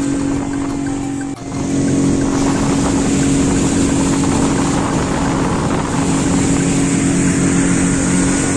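Outboard motor on an inflatable boat running steadily at speed, with water rushing under the hull. The sound dips briefly about a second and a half in, then carries on as before.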